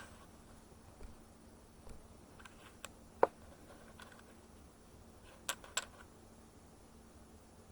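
A few short, sharp clicks over faint room tone: one loud click about a third of the way in, and two quick ones close together a little later.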